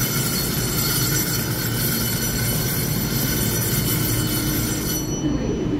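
Steady rumble and hum of a stationary EMU3000 electric multiple-unit train, with several steady high-pitched whining tones that stop abruptly about five seconds in.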